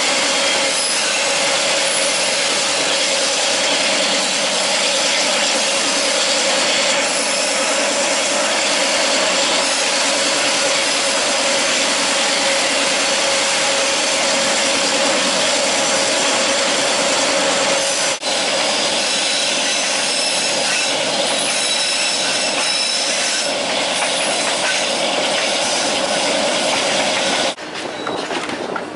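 Passenger train running, heard from an open carriage window: a loud, steady noise of wheels on rails and rattling carriages. It breaks off for an instant about eighteen seconds in and turns quieter near the end.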